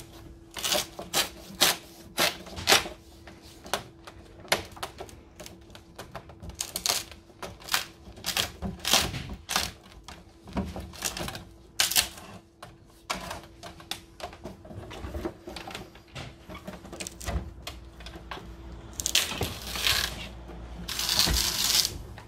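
Old rubber fridge door gasket being pulled out from behind the plastic door liner, its glued-in bead coming free in a run of irregular sharp clicks and snaps. Near the end come a few longer scraping rustles, with a faint steady hum underneath.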